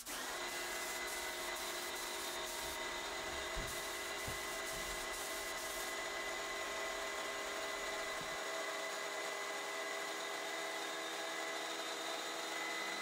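Electric heat gun running steadily, a fan whine over a rush of hot air, drying a freshly sprayed layer of water-based leather paint.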